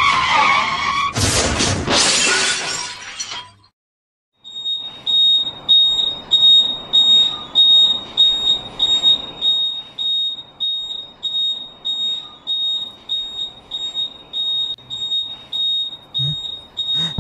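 Motorcycle crash: a loud smash with breaking and shattering about a second in, lasting a couple of seconds. After a brief silence, a high electronic beep starts and repeats about twice a second.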